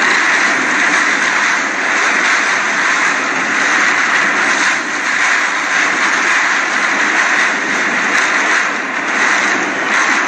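Hurricane-force wind blowing steadily with driving rain, a loud continuous rush with no let-up.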